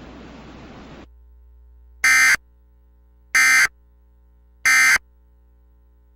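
Emergency Alert System end-of-message signal: three short, identical buzzing digital data bursts about 1.3 s apart, marking the end of the alert. A faint steady hum runs beneath them.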